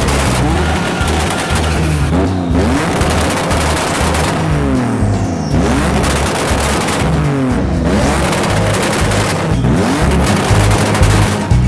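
Race car engine revved hard several times through a straight side-exit exhaust, each rev rising and falling in pitch, with dense crackling pops from the exhaust.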